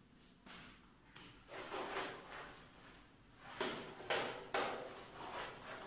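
Whiteboard being wiped with a duster: a series of short rubbing strokes across the board, faint at first and stronger in the second half.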